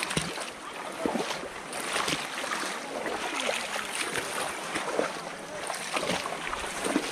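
Shallow muddy water sloshing and splashing irregularly as a person wades and gropes through it by hand.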